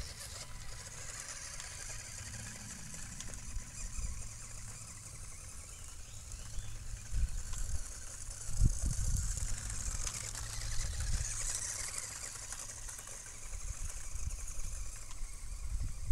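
Tamiya Grasshopper electric RC buggy pulling away and driving off across gravel and grass, its thin motor-and-gear whine fading out after several seconds. Wind rumbles on the microphone throughout, strongest in gusts near the middle, over a steady high hiss.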